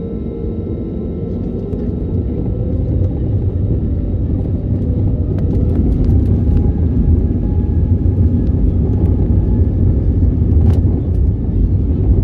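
Airbus A320 jet engines spooling up for takeoff: a heavy low rumble with a rising whine, growing louder over the first six seconds or so and then holding steady.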